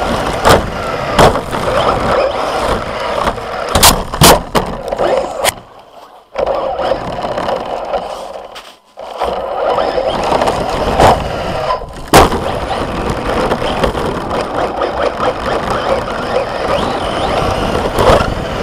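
RC car driving hard over packed snow and gravel, heard from on board: a continuous rushing of the tyres and drivetrain, broken by several sharp knocks from bumps and landings. The sound drops away briefly twice, around six and nine seconds in.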